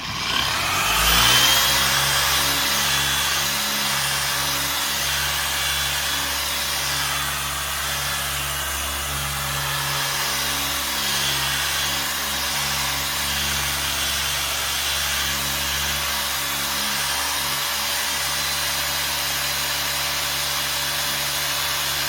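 Electric dual-action polisher spinning up within the first second, then running at a steady speed while buffing a headlight lens.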